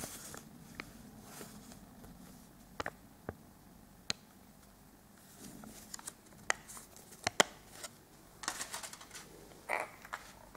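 Close-up handling of a candy wrapper and a paper toy leaflet: scattered sharp clicks and taps, with short bursts of paper rustling near the end.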